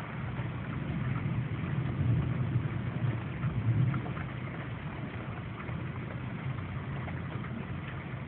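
Steady storm rain, with scattered drop ticks and a low rumble that swells about two to four seconds in.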